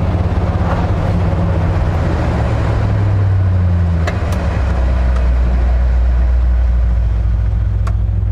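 Engine and road noise inside the cab of a 1967 Ford F-250 pickup on the move. About four and a half seconds in, the engine note drops to a lower steady hum as the truck slows for a hard stop on its new disc brakes. A few sharp clicks sound around four seconds in and again near the end.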